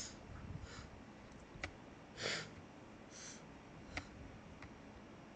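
Faint breathing through the nose, in four short puffs, the loudest near the middle. Three sharp computer-mouse clicks come between them, at about one and a half, four and four and a half seconds in.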